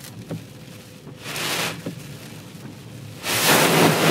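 Sea spray from waves breaking over a ferry's bow dashing against a car windscreen, heard from inside the car: a short surge about a second in, then a much louder, longer one near the end.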